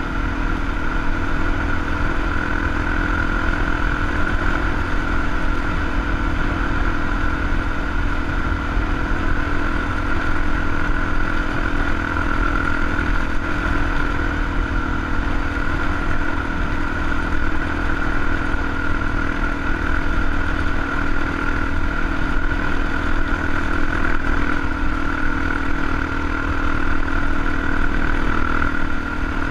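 Dual-sport motorcycle engine running at a steady cruising speed while riding a dirt road, a constant engine note over a low rumble.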